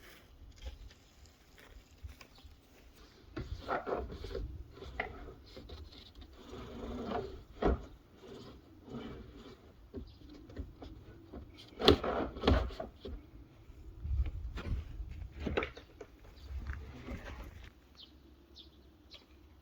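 Plastic shed panels being handled and fitted: scattered knocks, clicks and rubbing, with the sharpest knock about twelve seconds in.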